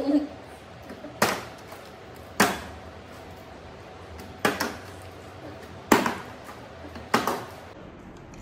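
A partly filled plastic water bottle being flipped and landing on a stone kitchen countertop: five sharp knocks about a second and a half apart.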